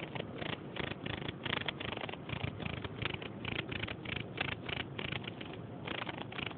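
Male field cricket chirping close up, wings raised, in quick repeated chirps of about four a second, with a short lull near the end.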